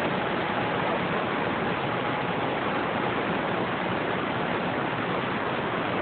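Radio receiver static: a steady hiss of open-band noise with no station coming through, and a faint thin whistle of a carrier for the first couple of seconds.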